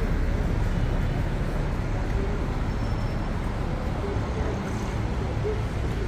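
Steady road-traffic rumble with no sudden events.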